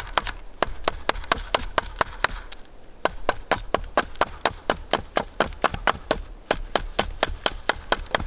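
Hatchet blade striking and shaping the end of a wooden pole: quick, light chopping strokes about four or five a second, with a short pause about two and a half seconds in.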